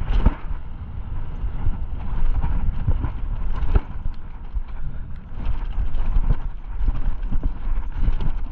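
Mountain bike riding fast over a rough dirt trail: a steady rumble of tyres and wind on the microphone, with frequent irregular knocks and rattles as the bike hits bumps.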